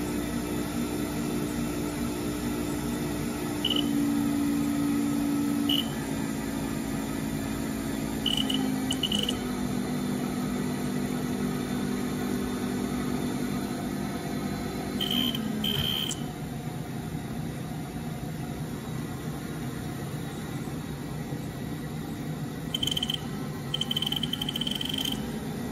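Haas VF-0E vector-drive spindle motor running with a steady hum that steps to a new pitch several times, each step coming with short beeps from the control's keypad as the spindle speed is raised to about 7,100 RPM. A run of keypad beeps comes near the end.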